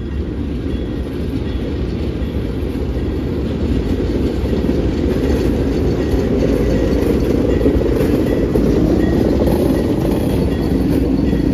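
GE C40-8 diesel locomotive approaching and passing close by at the head of a freight train: a low engine rumble that grows steadily louder as it draws level, with faint wheel clatter on the rails.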